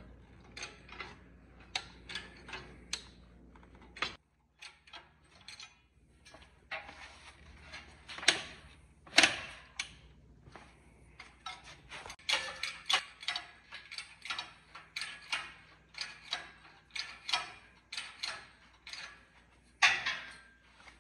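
Hydraulic engine hoist being pumped by hand to lift an engine on its chain, a short click or creak with each pump stroke. The strokes are sparse and irregular at first, then settle into a steady run of about two a second through the second half.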